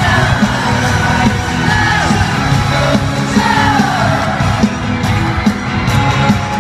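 Live pop concert in an arena, heard from among the audience: loud amplified music with a steady beat and singing, over a crowd singing along and yelling in high voices.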